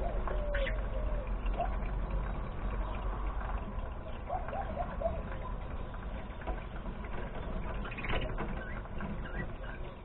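Birds calling, with a few soft warbling notes near the start and around the middle, and short sharp chirps just after the start and about eight seconds in, over a steady low rumble.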